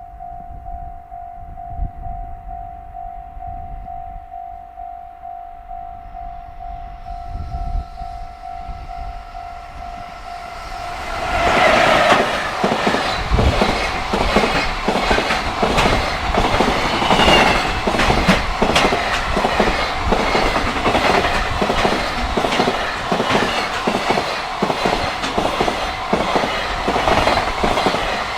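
Japanese level-crossing warning bell ringing in a steady, rapid pulse. About eleven seconds in, a JR Freight train arrives and passes close by, loud, its wheels clacking rhythmically over the rail joints.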